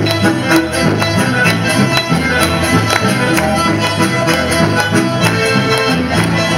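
Live band music: a button accordion and a bandoneon playing over acoustic guitars and bass guitar, with a steady beat.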